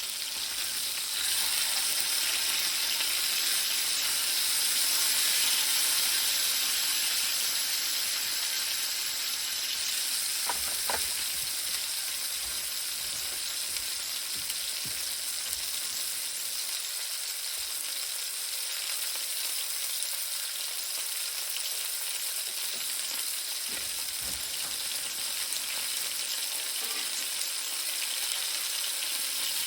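Food sizzling as it fries in hot fat, a steady hiss that is a little louder during the first ten seconds, with a couple of faint knocks along the way.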